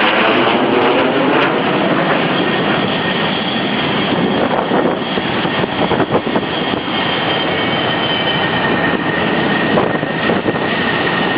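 Jet aircraft engines running loud and steady. A sweeping, phasing sound is heard near the start, and a thin high-pitched whine rises out of the noise about halfway through.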